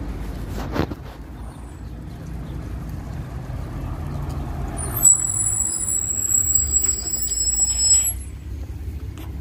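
LiAZ 5292.71 city bus pulling in to a stop: low engine rumble growing as it comes closer. About five seconds in, a high brake squeal with a hiss from the air brakes starts suddenly and lasts about three seconds as the bus halts.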